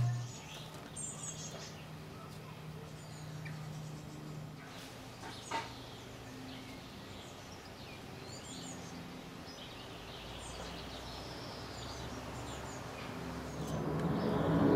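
Faint, short, high bird chirps scattered throughout, over a steady low hum. There is a single tap about five and a half seconds in, and rustling grows near the end as an adult wren comes into the nest box.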